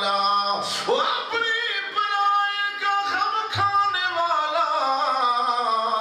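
A voice singing long, drawn-out melodic lines that glide slowly in pitch.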